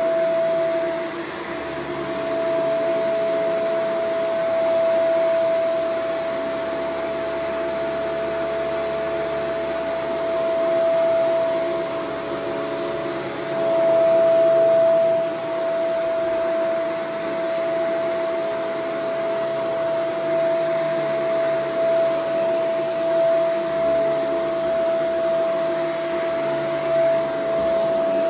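Shark Vertex AZ2002 upright vacuum running on carpet: a steady whining tone over the rush of air, briefly louder about halfway through.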